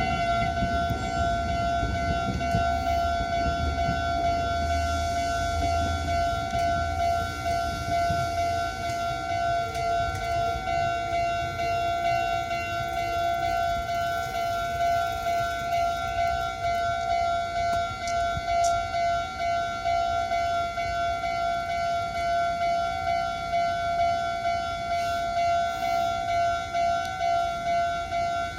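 Japanese railway level-crossing alarm ringing, a steady electronic two-tone clang pulsing evenly. A low rumble sits under it for the first eight seconds or so.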